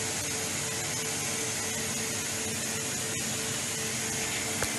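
Mitsui Seiki HU 40 A horizontal machining center running with coolant spraying inside its enclosure: a steady hiss over a steady machine hum, with a faint click about three seconds in and a sharper knock near the end.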